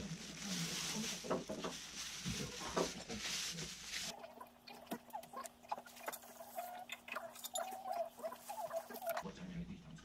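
Uncooked rice poured from a plastic bag into an aluminium mess tin: grains pattering and the bag crinkling. About four seconds in it turns quieter, with light clicks and small splashes as water is measured in a small cup and poured over the rice.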